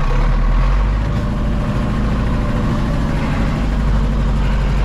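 Tractor diesel engine idling steadily with a deep, even rumble.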